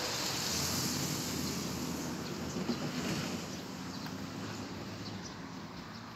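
Wind rushing and buffeting over a handheld camera's microphone, easing off toward the end.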